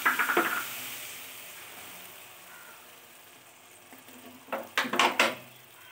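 Water poured into a kadai of hot fried spice paste, crackling loudly at first, then settling into a hiss that fades over a few seconds. A little before the end, a wooden spatula stirs and scrapes the pan a few times.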